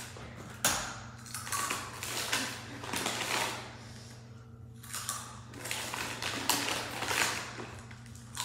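Takis rolled tortilla chips being bitten and chewed: a run of short, dry crunches in irregular clusters.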